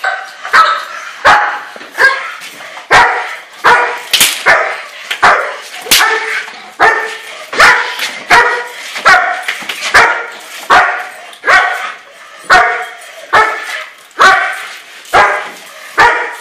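German Shepherd barking repeatedly at a steady pace, a little more than one sharp bark a second, while being agitated by a decoy during bite-work training.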